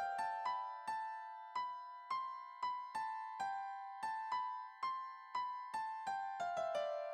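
Background music: a simple melody of single keyboard notes, each struck and then fading, about two a second.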